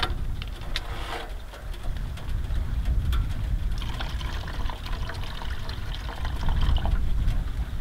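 Water being poured into a container, trickling for about three seconds from around four seconds in, over a steady low rumble, with a couple of light knocks before it.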